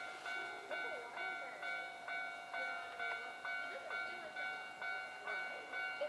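Japanese railway level-crossing warning bell ringing steadily in an even ding-ding rhythm, about two strikes a second. It rings while the barriers are down and the red lights flash, the signal that a train is approaching.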